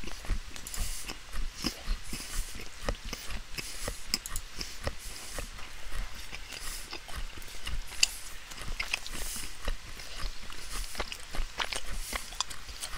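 Irregular clicks, crackles and soft knocks close to the microphone, several a second and uneven in strength.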